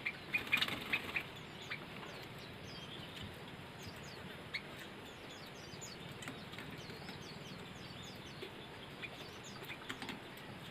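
Oriental white-eye (pleci) chirping: many short, high, thin calls, each dipping slightly in pitch, with a few clicks and rustles in the first second.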